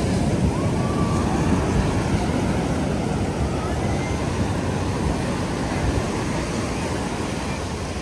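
Ocean surf rushing steadily onto a sandy beach, with a low rumble beneath and a few faint distant voices.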